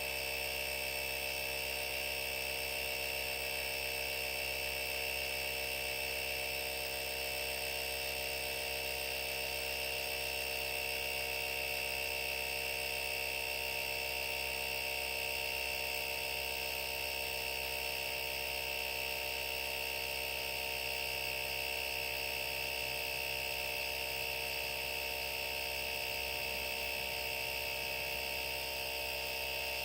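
Auxito AJ01 jump starter's built-in portable air compressor running steadily while inflating a car tire, a constant high-pitched mechanical whine that holds an even pitch and level.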